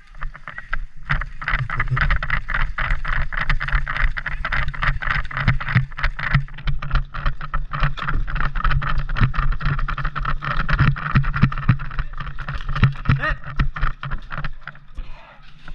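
A player running up a bank in airsoft gear: a steady, loud patter of footsteps and jostling gear close to the microphone, building about a second in and easing off near the end.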